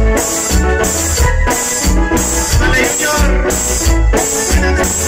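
Live tropical cumbia band playing a steady dance beat with a heavy bass line.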